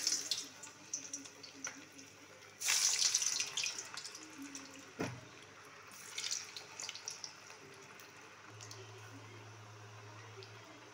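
Onion-potato vada batter frying in hot oil: loud sizzling surges as pieces go into the oil at the start, about three seconds in and again around six seconds, settling into a steady fizz of bubbling oil. A single knock about five seconds in.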